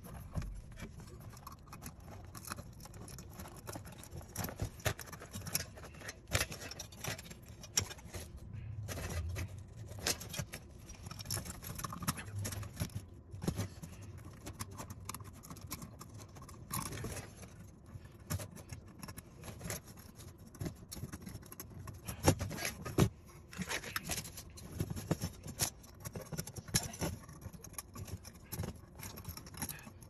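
Irregular clicks, clinks and scrapes of hands handling the metal frame and ceramic insulators of an electric furnace heat kit's element rack.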